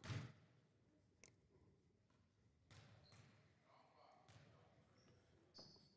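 Near silence with faint basketball-game sounds: a ball bouncing, with a thud at the start and a few brief, faint squeaks of sneakers on the court later on.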